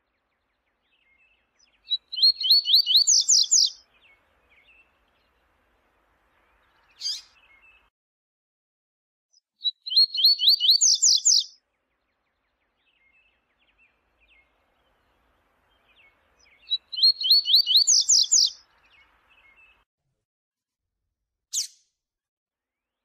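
Double-collared seedeater (coleiro) singing its 'viu-tiu' song: three phrases about seven seconds apart, each a quick run of sharp high notes speeding into a trill, with a short single note twice in the gaps.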